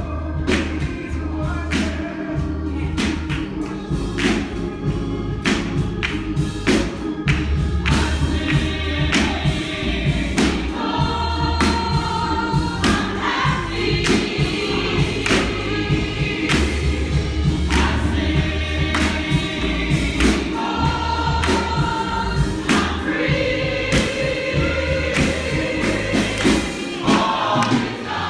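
Church congregation singing a gospel song together over a steady percussive beat and a deep bass line.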